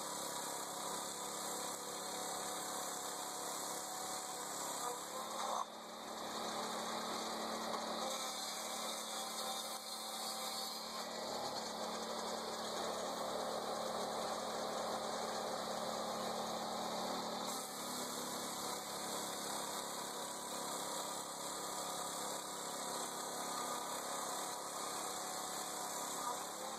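An engine running steadily at a low level, a constant hum with a noisy wash over it. The sound shifts slightly about six seconds in and again about seventeen seconds in.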